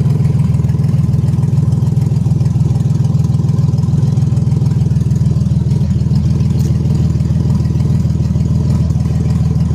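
1996 Camaro's V6 engine running at a steady idle with a low, even exhaust drone; the exhaust is loud from a leak.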